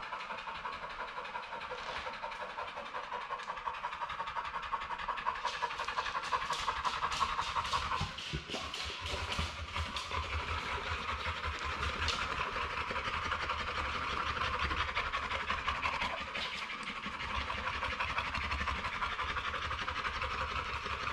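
A big grey American Bully XL dog panting fast and steadily, open-mouthed with its tongue out, with a short run of clicks partway through.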